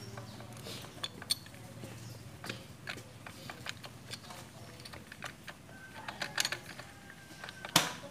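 Light metallic clicks and clinks as the clutch pressure plate and washer are handled and seated on a motorcycle's clutch hub, with one sharper metal knock near the end.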